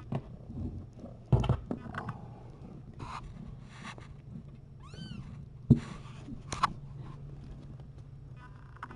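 Kittens close to the microphone: one short, high kitten mew that rises and falls about five seconds in, amid knocks and rustling as the cats bump against the camera and blanket. The loudest sound is a sharp knock just after the mew.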